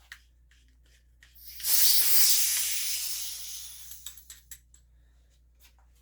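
Umarex HDR 68 being degassed: compressed gas hissing out of the gun, starting sharply about a second and a half in and dying away over about three seconds. A few light clicks follow.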